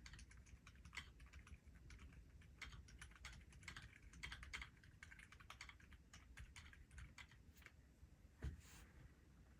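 Typing on a Keychron Q2 mechanical keyboard fitted with Gazzew Bobagum silent linear switches and GMK Laser keycaps: a quick, irregular run of quiet keystrokes, with one heavier stroke near the end.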